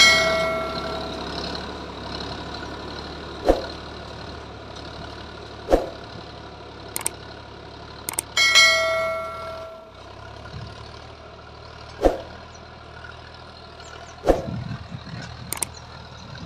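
Sonalika tractor's diesel engine running steadily as it pulls a tined seed drill through soil. Sharp metal clanks come from the implement every few seconds, and twice a clang rings on for about a second, like a bell.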